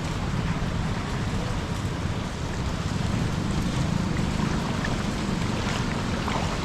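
Steady rushing wash of flash-flood water in a street, with a low rumble underneath.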